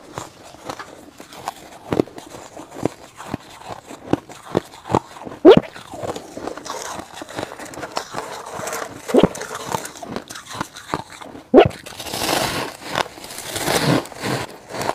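Close-miked crunching and chewing of soft, snow-like frost ice, in irregular crisp crunches with a few louder bites. Near the end comes a longer, denser burst of crunching as a fresh chunk is bitten.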